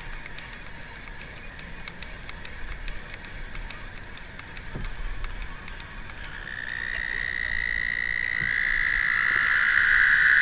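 Toads trilling, noisy: a steady high trill that is faint at first and swells loud from about six seconds in. Near the end a second, slightly lower trill joins and overlaps it.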